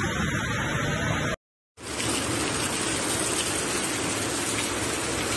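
Heavy rain and rushing floodwater, a steady hiss with no clear rhythm. It cuts out completely for a moment about a second and a half in, then comes back.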